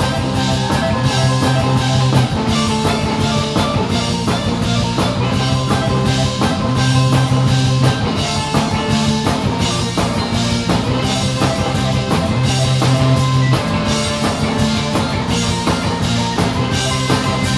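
Live rock band playing: a drum kit keeps a steady beat under electric guitars and bass guitar.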